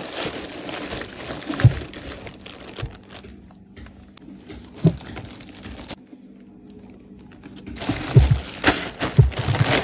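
Clear plastic wrapping crinkling and rustling as it is handled and pulled open, with a few short thumps. It is busy at the start, quieter in the middle and busy again near the end.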